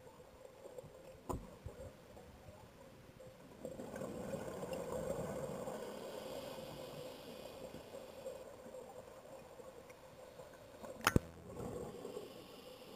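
Scuba diver's breathing and exhaled bubbles heard underwater, swelling for a few seconds in the middle. Two sharp knocks, one about a second in and a louder one near the end.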